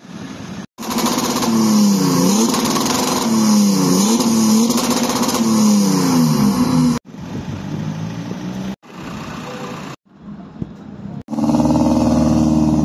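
BMW car engines being revved in a string of short clips. The loudest is a white E60 BMW 5 Series, its engine note repeatedly falling and climbing again. Near the end a silver E36 BMW 3 Series coupe moves off with a steady engine note.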